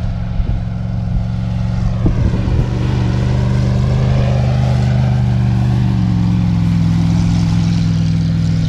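Dune buggy engine running steadily as the buggy drives up a sand dune. Its pitch holds nearly level, shifting slightly about six seconds in.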